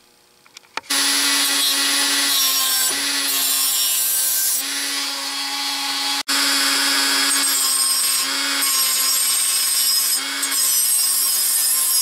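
High-speed rotary tool with a small cutoff wheel cutting a slot into thin-walled brass tubing: a steady motor whine under the gritty noise of the cut. It starts about a second in and breaks off for an instant near the middle.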